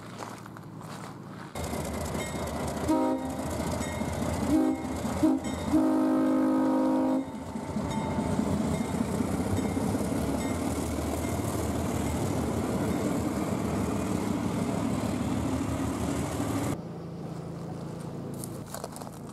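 Alco diesel locomotive sounding its horn in a few short toots and then one long blast of about a second and a half, followed by its diesel engine running steadily until the sound stops abruptly near the end.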